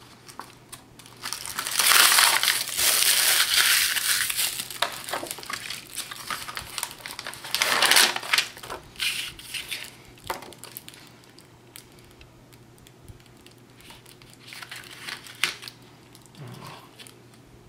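Paper and the plastic backing film from a Xyron adhesive sheet crinkling and rustling as cardstock panels are peeled free and handled. It comes in bursts, a long one early and a shorter one midway, then fainter rustles as a panel is pressed down.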